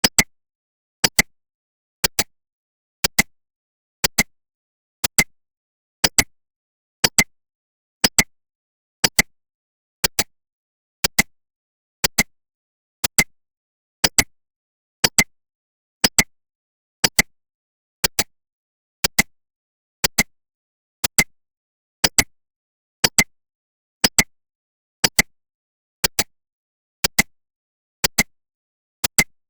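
Countdown timer's clock-tick sound effect: a sharp double click once every second, with silence in between.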